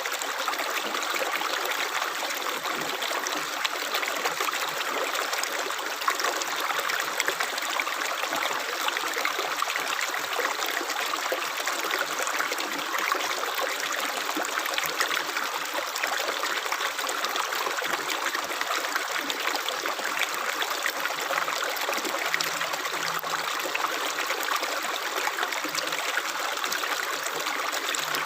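Water running steadily in a stream, an unbroken rushing trickle with no pauses or splashes.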